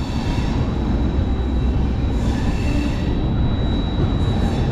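Rajdhani Express coach rolling on the track: a steady rumble of wheels on rails, with brief faint wheel squeals about two seconds in and again near the end, as the train nears a station.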